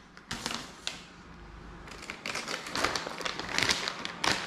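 A clear plastic bag crinkling and rustling as it is handled, with a few light taps in the first second. The rustling grows busier from about halfway through.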